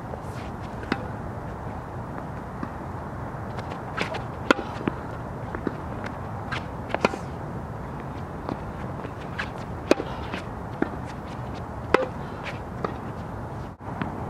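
Tennis ball hit by a racket and bouncing on a hard court: a string of sharp pops at irregular intervals over a steady background noise.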